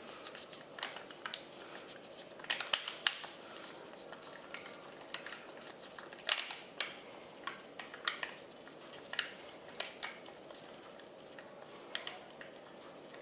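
Thin aluminium foil pie cup crinkling and crackling in short, scattered bursts as fingers press a pastry base down into it.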